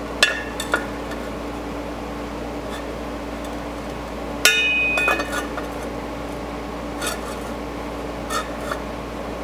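Steel flex plate clinking and scraping against the torque converter as it is turned by hand to line up the bolt holes. About halfway through comes one sharper metallic clank that rings briefly, with a few light ticks later, over a steady low hum.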